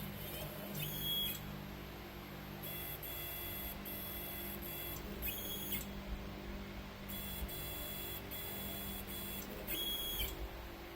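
CNC plasma table's stepper motors whining in several short high-pitched stretches as the gantry moves through the cut path with the torch switched off, a dry run of the job. A low steady hum runs underneath.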